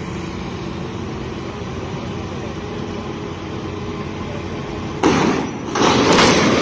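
Steady engine hum, then a sudden loud noise about five seconds in and again near the end.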